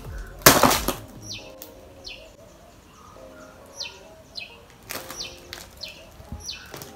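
Scissors cutting through packing tape and a cardboard box, a loud crunching rustle about half a second in, then lighter rustling of packaging near the end. Behind it a bird chirps over and over, short high calls about two a second.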